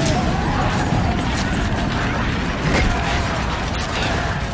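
Battle background sound effects: a steady, dense din of war noise with deep rumble and a few sharp hits.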